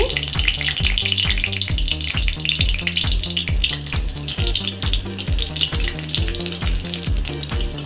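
Whole spices and dried red chillies sizzling and crackling as they fry in hot oil and ghee in a kadhai, pushed about with a metal spatula. Background music with a steady beat plays underneath.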